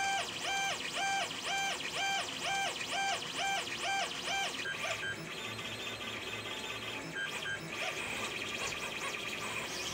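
TronXY X5S 3D printer's stepper motors whining as the print head moves back and forth: each stroke is a tone that rises, holds and falls, about two a second for the first half. After that the whines turn shorter and irregular over a steady high hum.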